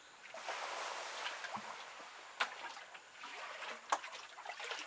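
Muddy rainwater being scooped by hand into a plastic bucket to bail out a flooded pit: splashing and trickling water, with a couple of sharp knocks about halfway through and near the end.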